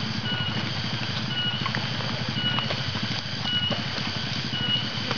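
Single-cylinder trail motorcycle engine running at a steady idle, a rapid even putter. A short high chirp repeats about once a second over it.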